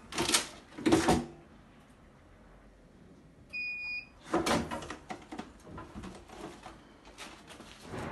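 Tray sealer's lid pulled down onto a plastic tray with two loud clunks, a short electronic beep from the machine about three and a half seconds in, then another clunk as the lid is lifted, followed by lighter clatter of the sealed tray and film being handled.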